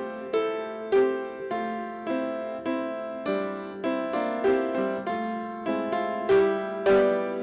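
Piano playing a slow piece, single notes and chords struck about once or twice a second, each ringing and fading before the next.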